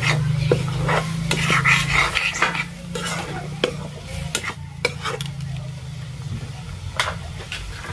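Steel ladle stirring and scraping potatoes frying in a metal kadhai, with sizzling and repeated sharp clinks of the ladle against the pan.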